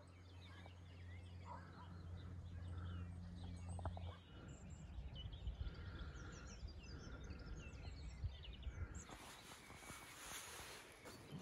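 Faint outdoor ambience of several birds chirping and singing, over a low steady hum that stops about four seconds in. A soft rushing noise comes in near the end.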